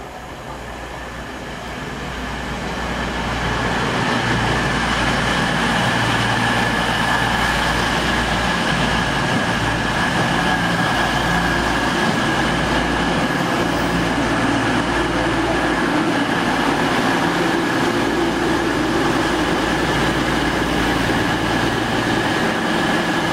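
Class 222 Meridian diesel multiple unit running in along the platform, its underfloor diesel engines and wheels making a steady high whine over a low engine note. It grows louder over the first few seconds, then holds steady.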